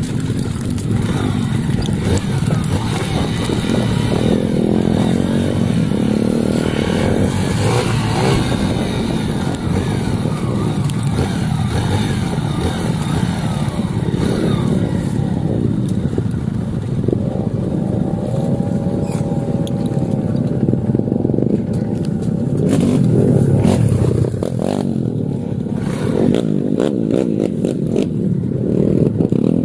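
Dirt bike engine running steadily while riding a rough trail, with the rattle and scrape of the bike over the ground. About two-thirds of the way through, the engine pitch briefly rises and falls.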